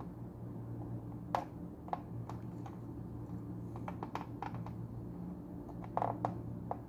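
Irregular light clicks and taps as metal test leads and alligator clips are handled against a circuit board, with a few louder clicks about a second and a half in and again near the end. A steady low hum runs underneath.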